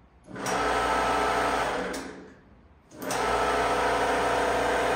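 Electric motor of a 1962 Vibro Shear, a Pullmax-type reciprocating metal-forming machine, switched on for its first run after rewiring: it comes up to a steady hum, is cut off and winds down about two seconds in, then starts again about three seconds in and keeps running.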